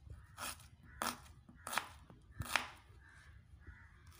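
Kitchen knife slicing through a red onion and knocking on a wooden cutting board, about four crisp cuts spaced under a second apart.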